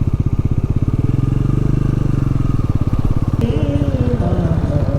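Motorcycle engine running steadily under way, its firing pulses a fast, even throb. From about three and a half seconds in, a voice singing rises over it.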